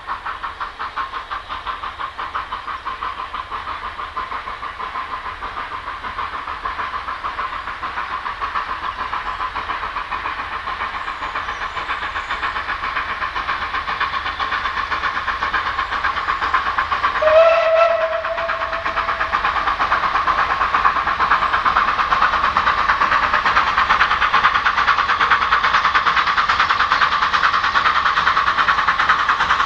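Steam locomotive No.7 Beatrice working a train, its rhythmic exhaust beats growing steadily louder as it approaches. Its whistle sounds once, briefly, a little past halfway.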